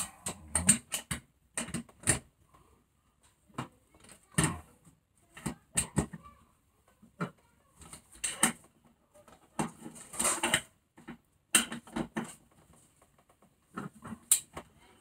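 Irregular clicks, knocks and rustling from bolts on a hub and brake disc, clamped in a bench vice, being tightened by hand, with plastic wrapping crinkling around the part.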